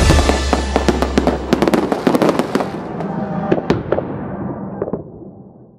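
Fireworks crackling and popping in a long run of sharp bangs. Music runs under them until about a second and a half in, and the whole sound then fades out gradually.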